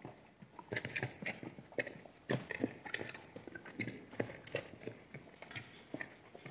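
Hooves of several Hartmann's mountain zebras clopping on hard, bare ground as they walk: irregular knocks, several a second, most frequent from about a second in.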